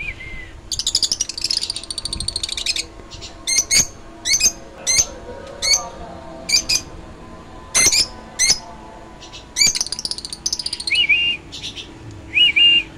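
Caged lovebirds chirping: a long rapid chatter in the first few seconds, then a string of short, sharp, high chirps, and two short two-note calls near the end.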